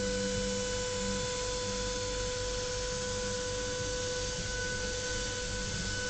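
CNC machine spindle running steadily: a high, steady whine with several overtones over a constant hiss.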